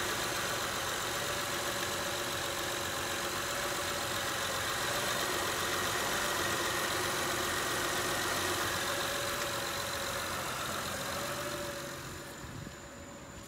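Honda Ridgeline's 3.5-litre V6 idling steadily with the power steering pump running and the reservoir cap off to let air out of the system after a power steering O-ring replacement. The sound grows fainter near the end.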